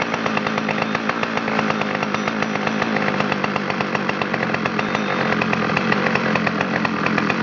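Two-stroke chainsaw engine running steadily at an even speed.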